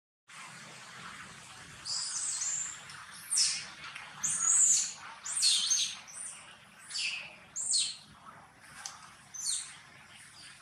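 Short, high-pitched squeals from a baby long-tailed macaque, repeated about once a second from about two seconds in, many sliding down in pitch.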